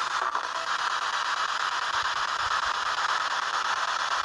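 Steady hiss of static, even and unchanging, with no distinct events.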